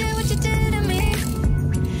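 Background music: a song with a singing voice over a steady low bass line.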